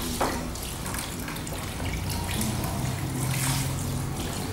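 Water running from a handheld shower sprayer over a head and splashing into a salon shampoo basin, with one short knock about a quarter second in.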